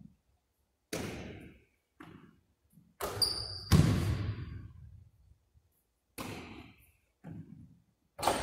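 Basketball bouncing on a hardwood gym floor: single irregular thuds, each ringing on in the large hall's echo, the loudest about three and a half seconds in. Short high sneaker squeaks come just before it and near the end.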